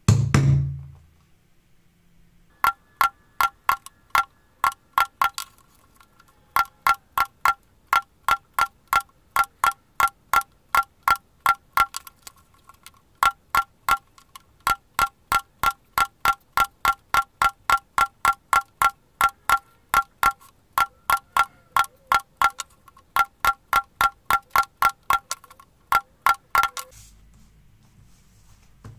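A mallet striking a steel hole punch to punch holes in leather through a paper pattern. One heavy dull blow comes first, then a long run of sharp blows, about two to three a second in groups with short pauses, each with a clear metallic ring.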